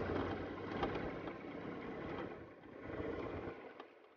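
Motorcycle riding sound picked up by the onboard camera: a low, even mix of engine and road noise with no clear engine note, dropping away near the end.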